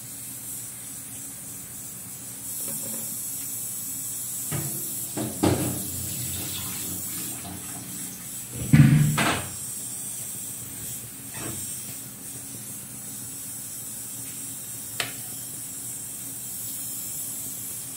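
Pan of asam rebus broth and vegetables hissing steadily on the heat after hot water is added, with a few scattered knocks and thumps, the loudest about nine seconds in.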